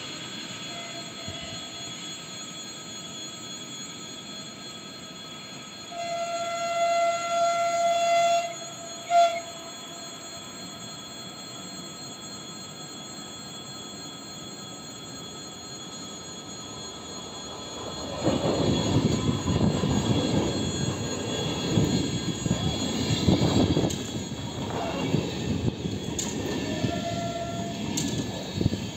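An electric train's horn sounds one steady note for about two seconds, then gives a short toot. From about two-thirds of the way through, a Stadler ESh2 double-decker electric train runs close by with a loud rumble and rattle of wheels on rails, and a brief horn note near the end.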